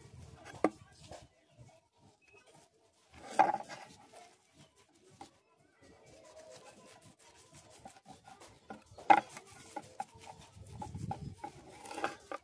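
A cloth pad rubbed over a forged steel wood-cutter blade on a wooden bench, with a few sharp knocks, the loudest about three and a half and nine seconds in.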